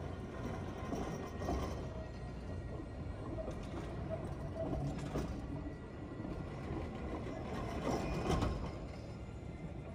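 Alstom Citadis low-floor tram rolling slowly past on its rails: a steady low running rumble, with louder knocks and rattles about a second and a half in, around five seconds, and loudest around eight seconds.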